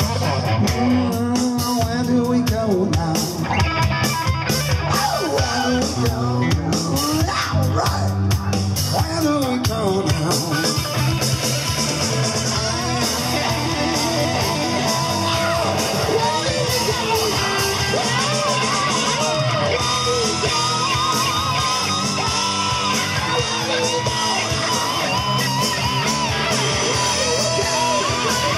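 Live rock band playing: electric guitar, bass guitar and drums, with a male singer singing into a microphone over them.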